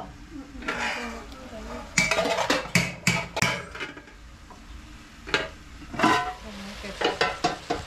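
Metal spoon and aluminium pot lids clanking on a cooking pot. A quick run of ringing strikes comes about two seconds in, then a few separate knocks near the end.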